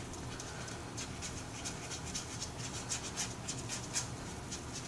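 A plastic fork stirring and scraping through peach sauce in a pan, mixing in cornstarch and water to thicken it: soft, irregular scraping strokes.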